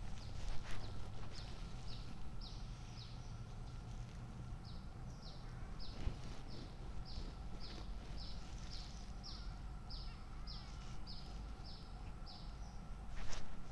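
A long series of short, high-pitched calls, each falling in pitch, repeated about two to three times a second from an animal, over a steady low outdoor rumble. A sharp knock near the end is the loudest sound.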